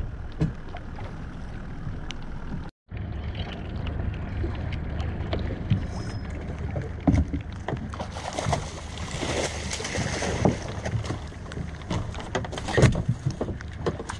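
Water splashing at the side of a small fishing boat for a few seconds, about eight seconds in, as a big fish is scooped up in a landing net. Under it runs a steady low hum from the boat, with scattered small knocks and clicks.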